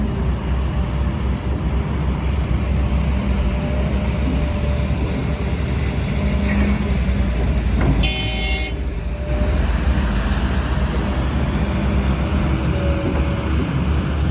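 Heavy diesel earthmoving machinery running steadily with a deep rumble, and a single short horn toot about eight seconds in.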